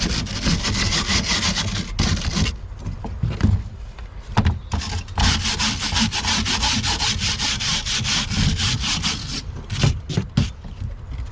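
Wire brush scrubbing cold, brittle wax and propolis off a timber-framed metal queen excluder in rapid back-and-forth strokes. The strokes break off for a couple of seconds about a quarter of the way in, then resume and thin out near the end.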